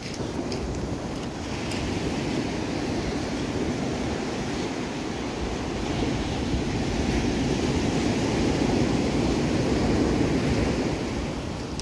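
Ocean surf breaking and washing up a sandy beach, a steady rushing wash that swells louder past the middle and eases near the end, with wind buffeting the microphone.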